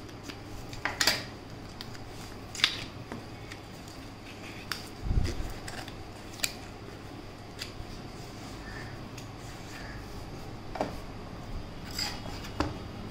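Cardboard product box being opened and handled: scattered clicks, scrapes and rustles as the sleeve slides off and the lid and inner tray come out, with a soft thump about five seconds in. A faint steady hum runs underneath.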